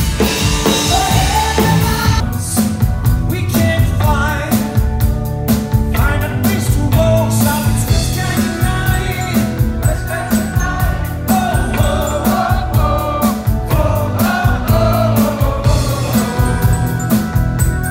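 Live rock band playing with a male lead singer over drums, bass guitar, electric guitar and keyboards, on a steady beat. About two seconds in, the music cuts abruptly from one song to another.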